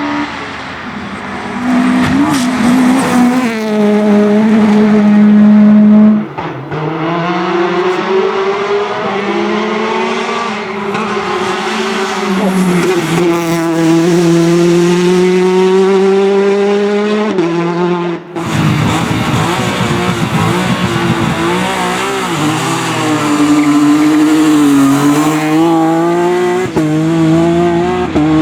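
Rally cars at full throttle on a stage, their engines revving high and dropping with each gear change. About two-thirds of the way through, one car's sound cuts off abruptly and another's begins.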